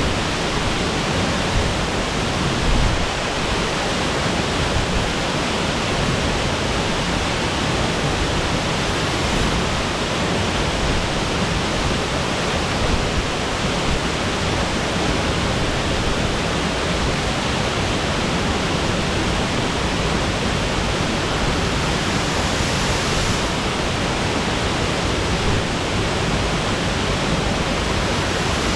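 Waterfall pouring steadily, a dense, even rush of falling water with no let-up.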